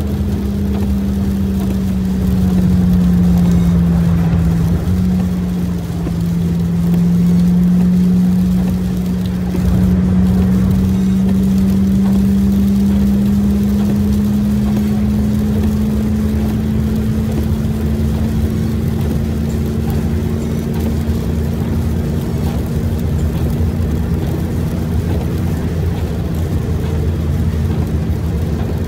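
Car driving at freeway speed on a wet road, heard from inside the cabin: a steady low engine-and-road drone with tyre rumble. The hum dips slightly in pitch a few seconds in, then rises and holds.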